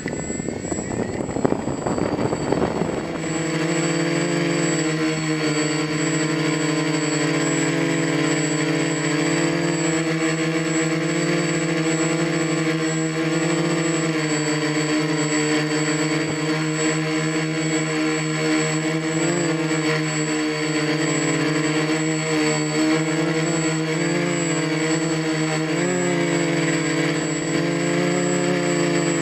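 XAircraft X450 quadcopter's electric motors and propellers in flight. A rough rushing noise for the first few seconds settles into a steady, many-toned buzzing hum whose pitch wavers slightly as the motors adjust, over a thin high whine.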